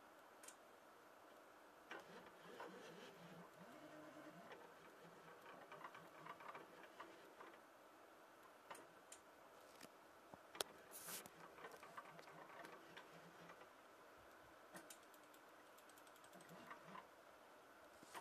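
Faint stepper motors of a home-made CNC machine making short pitched moves that start and stop, with scattered mechanical clicks and one sharper click about halfway through.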